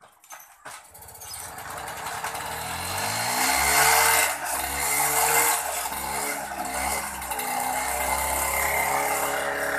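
Luna TFR+ 49cc two-stroke moped engine being pedal-started: it catches about two and a half seconds in, its pitch rising, and is then revved up and down.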